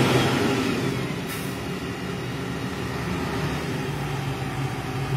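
Diesel engines of YTO 1264 tractors running steadily, easing slightly about a second in.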